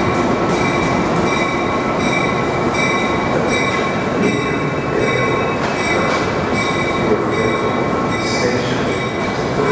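Passenger train cars rolling past at low speed: a steady rumble of wheels on rail with high-pitched wheel squeal that comes and goes.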